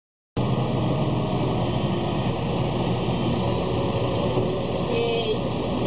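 Steady motor-traffic noise with a low engine hum under it. It cuts in suddenly just after the start.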